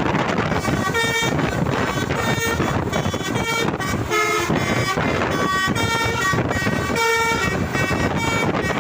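Bus telolet horn of the Basuri type playing a rapid melody of short horn notes that jump from pitch to pitch, over a steady rush of wind and traffic noise.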